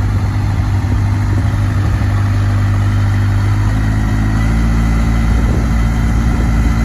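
Diesel engine of a Case backhoe loader running steadily; about four seconds in its note changes and deepens as the backhoe is worked, with a faint high whine over it.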